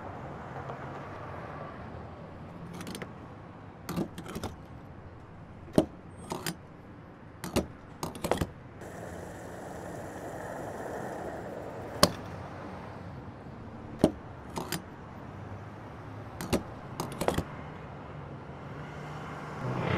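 Mechanical sound effects of a robotic fuelling arm: sharp metallic clicks and clacks at irregular intervals over a steady low hum, with a soft rushing swell in the middle.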